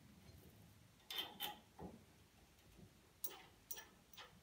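Faint light metal clicks, about six in four seconds, as a billet aluminum wheel hub is handled and fitted onto a front suspension spindle.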